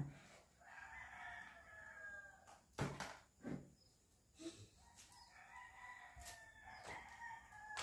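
A rooster crowing twice, each crow long and faint, with a few light knocks in between.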